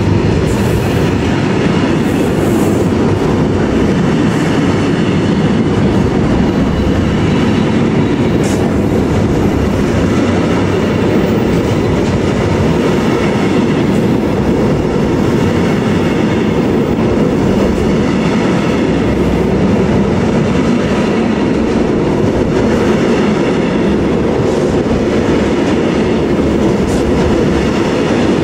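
Container-laden flat wagons of an intermodal freight train rolling past close by at a steady speed: loud, even wheel-on-rail noise with a few faint clicks.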